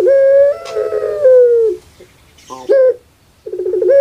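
Female Barbary dove (puter pelung) giving its rhythmic "crying" call. A long, drawn-out coo ends with a sag in pitch, a short note sounds in the gap, and near the end the next call starts with a quick rolling stutter.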